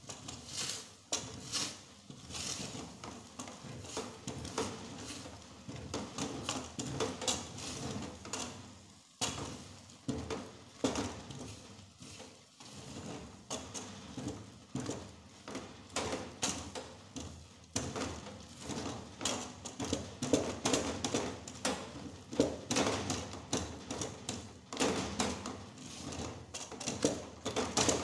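Wooden spatula stirring and beating thickening amala (yam flour paste) in an aluminium pot, with repeated scraping knocks against the pot, louder in the last third.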